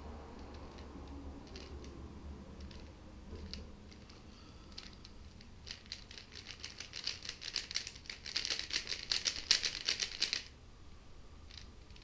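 Plastic 3x3 Rubik's cube being turned with fingertricks, its layers clicking: a few scattered turns, then a fast, rapid run of clicking turns that stops suddenly near the end.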